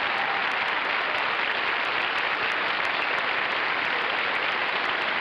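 Studio audience applauding, a steady dense clapping that holds at one level throughout.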